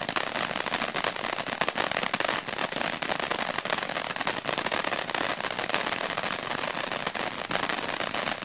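Western Fireworks BA519 Hot Roll ground fountain burning: a steady spraying hiss of sparks, thick with dense crackling pops.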